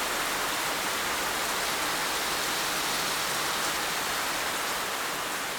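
Heavy rain falling steadily, a dense even hiss with no separate drops standing out; it begins to fade out near the end.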